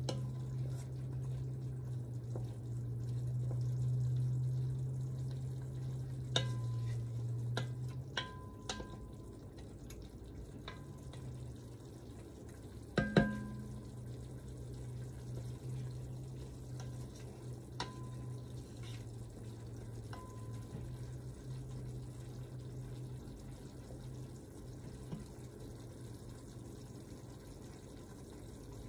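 Wooden spoon stirring a bubbling sauce in an enameled cast iron Dutch oven, over a steady low hum. A few knocks of the spoon against the pot come through, the loudest about 13 seconds in.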